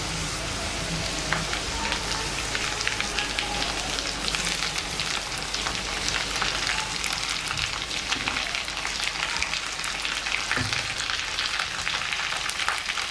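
Stuffed whole brinjals sizzling in hot oil with browned onion in a kadhai: a steady frying hiss with dense crackling that thickens after a few seconds.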